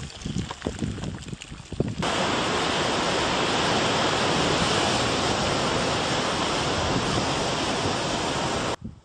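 Steady loud rush of surf and wind at a lava ocean entry, where molten lava pours off a sea cliff into the sea. It starts abruptly about two seconds in and cuts off sharply just before the end. Before it comes an uneven, gusty noise.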